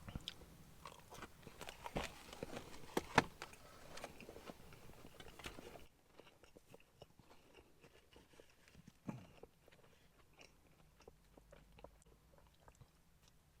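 Close-miked chewing and biting of fast food, with wet mouth clicks and crunches and one sharp crunch about three seconds in. It is louder and busier for the first six seconds, then drops suddenly to quieter chewing.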